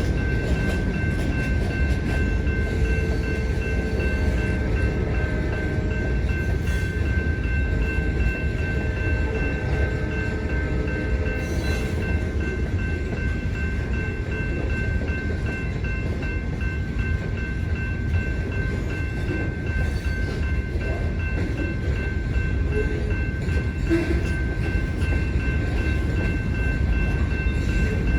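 Freight train rolling past: a steady, loud low rumble of wheels on rail, with a steady high-pitched tone over it.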